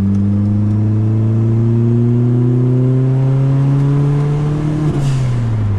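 Mk2 Volkswagen Golf GTS engine on a third-gear pull, revs climbing steadily for about five seconds. Near the end the throttle closes with a brief hiss and the revs fall away.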